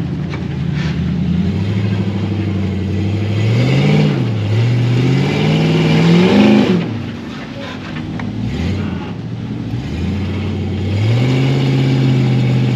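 Off-road vehicle engine working a rock climb: it holds steady, revs up twice in the middle, drops back near idle, then comes up again and holds near the end.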